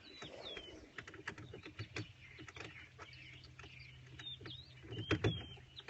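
Birds calling: a few short slurred whistles, repeated in small groups, over faint scattered clicks.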